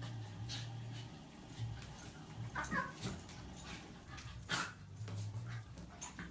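Miniature schnauzer mix dog making short high cries during rough play, one falling in pitch about two and a half seconds in, mixed with sharp scuffling knocks. The loudest knock comes about four and a half seconds in.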